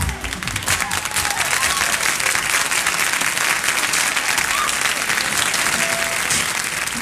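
Audience applauding and cheering, with a few whoops, as the song's music ends in the first moment.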